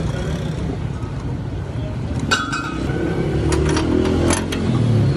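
A steady low engine rumble from a motor vehicle. Over it come sharp metal clinks from a spark plug wrench working on a small petrol generator engine: one about two seconds in, and several more shortly afterward.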